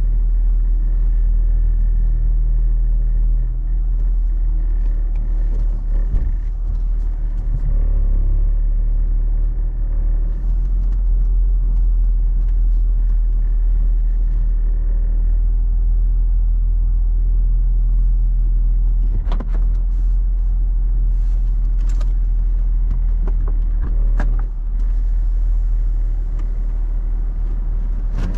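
Car engine idling steadily with a low rumble, a few light clicks sounding about two-thirds of the way through.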